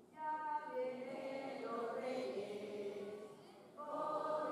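A group of voices singing or chanting together in sustained, held notes, breaking off briefly near the end before starting again.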